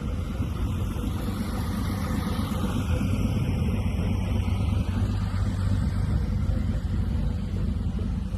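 Steady low rumble of boat engines idling in the harbor.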